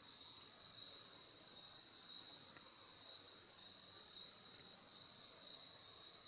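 Steady insect chorus, a high continuous chirring that neither starts nor stops.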